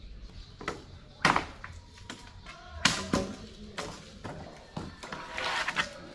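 Wood being struck during shelter building: a handful of sharp, irregular knocks a second or so apart, with a scraping burst near the end.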